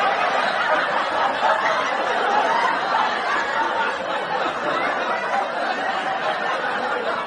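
Studio audience chattering and laughing, many voices overlapping in a steady crowd hubbub.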